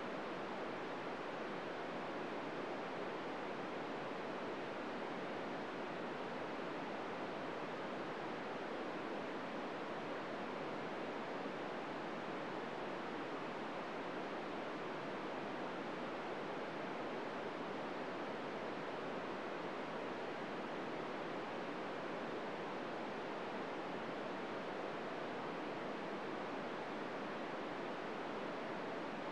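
Steady hiss of an FM radio receiver tuned to 145.800 MHz with the squelch open, carrying no signal: plain static with no SSTV tones in it.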